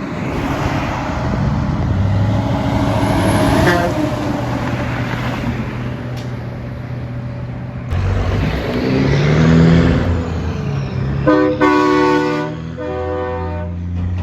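Trucks passing close by with engine and road noise, one engine's pitch rising as it goes by. Near the end a truck's air horn sounds in two blasts.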